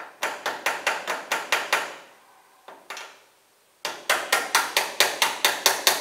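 Rapid metal-on-metal tapping: a pair of pliers used as a hammer on another pair of pliers gripping a rivet whose centre pin broke off, to flatten it. Two runs of about four to five taps a second with a pause between.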